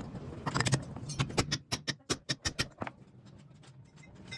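A car starter cranking with a bad sound: a rapid run of sharp clicks, about five a second, lasting about two seconds, then stopping.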